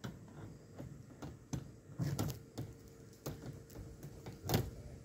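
Irregular knocks and light rattles of a wire-mesh trap as a dove moves and flaps against it, with one louder knock about four and a half seconds in.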